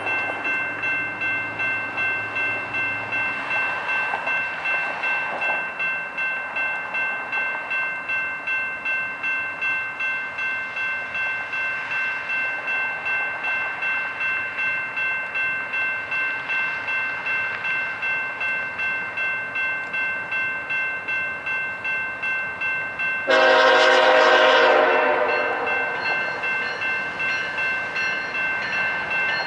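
A railroad crossing bell rings steadily at about two strokes a second. About 23 seconds in, a diesel locomotive's air horn sounds loudly for a couple of seconds, then sounds again near the end.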